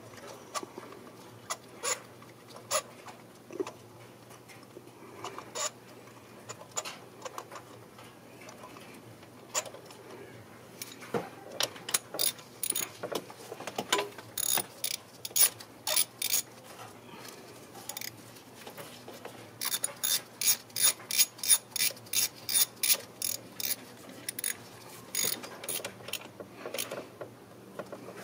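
Socket ratchet clicking as a spark plug is wound in with a 5/8 spark plug socket on a 3/8 extension. Scattered single clicks come first, then fast runs of clicks about halfway through and again later.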